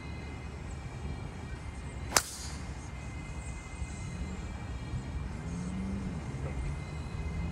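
A golf driver striking a ball off the tee: one sharp crack about two seconds in, over a steady low outdoor rumble.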